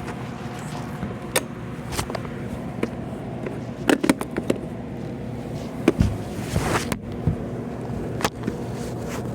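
Weather radio static: a steady hiss, with scattered clicks and knocks as the radio is handled and its buttons pressed.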